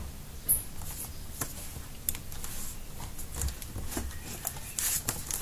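Scattered small clicks and handling noise as the plastic back cover of a Lenovo Yoga 510 laptop is pressed down along its edges to close it tight, with a sharper click about half a second in and a short rustle near the end.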